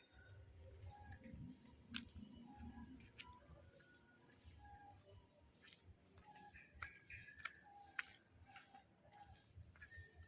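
Faint birdsong from several forest birds: a high, short chirp repeated about once a second, with lower short whistled notes between. There are a few sharp clicks, and a low rumble early on.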